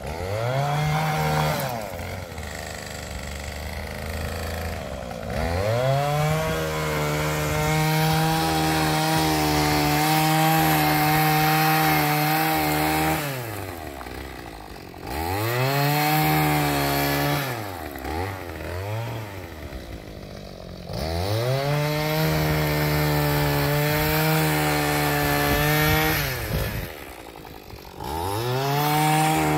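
Two-stroke engine of an Echo PAS powerhead driving a power paddle sweeper, repeatedly throttled up to full speed, held there for several seconds, then dropped back to idle. It revs up about two seconds in, falls to idle around the middle with a few short blips, and revs up again twice more.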